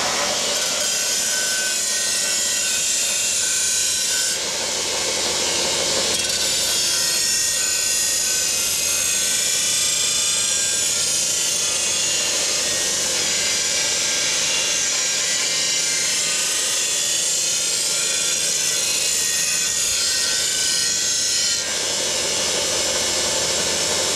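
Belt grinder running as the edge of a steel shovel blade is ground against its abrasive belt to sharpen it: a steady, loud grinding hiss over the machine's hum. About 22 seconds in the blade comes off the belt and only the machine's running sound remains.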